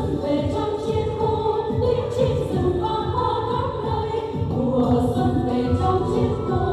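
A group of women singing a Vietnamese song together into microphones, over amplified music with a steady beat.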